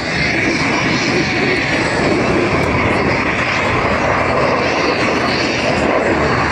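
Steady jet engine noise from Blue Angels F/A-18 Hornets flying overhead.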